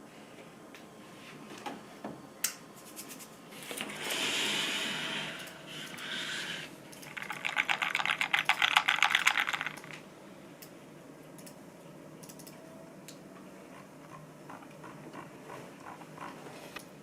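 Kitchen utensils being handled while a drink is made: a few clicks, a rushing noise about four seconds in and again briefly about two seconds later, then rapid clicking and rattling for about three seconds, then a few light clicks.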